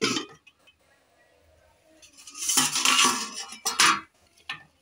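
Stainless steel bowls and pot clinking and scraping: a sharp clink at the start, a louder scraping stretch from about two seconds in, then a couple of sharp knocks near the end.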